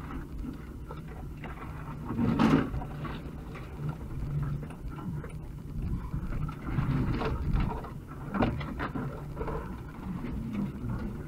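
UAZ 2206 van driving slowly over a rough, muddy forest track, heard from inside the cab: a steady low engine drone with the body knocking and rattling over bumps, the loudest knock about two and a half seconds in.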